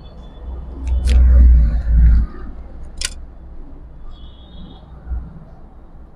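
A low rumble swells for about a second and a half, with two sharp clicks, one during the rumble and one about a second after it.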